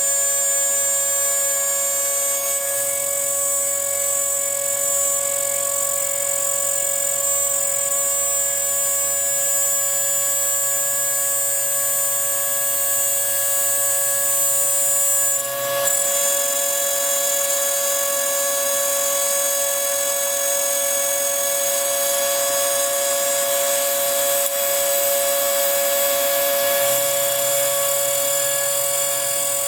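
Small homemade CNC router's spindle running steadily with a high whine while milling a copper-clad circuit board with a carbide bit, the sound dipping briefly about halfway through.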